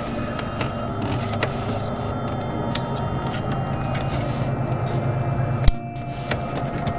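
Small plastic clicks and knocks from handling a C4 Corvette Bose speaker enclosure and its wiring connector, with one sharp click near the end, over a steady low hum.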